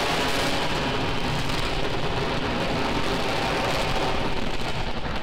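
Falcon 9's nine Merlin rocket engines during ascent: a steady, loud crackling noise of rocket exhaust heard from the ground, its highest part fading slightly near the end as the rocket climbs away.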